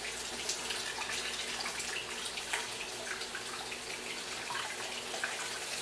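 Water running steadily from a tap into a basin or tub, with small splashes and drips.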